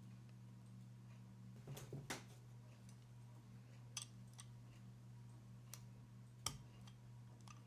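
Small parts being handled during assembly: a few scattered light clicks and taps, the sharpest about six and a half seconds in, over a steady low hum.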